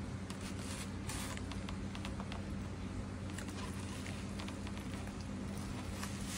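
Monitor lizard biting and pulling at raw steak on a plate: scattered short clicks and taps of jaws and meat against the plate, over a steady low hum.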